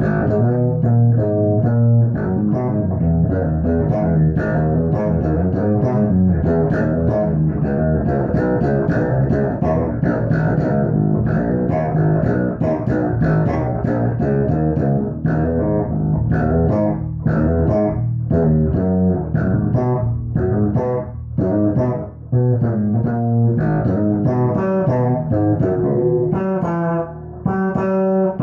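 BC Rich Warlock electric string instrument played solo, a steady stream of plucked notes and runs, with two brief breaks about 22 and 27 seconds in.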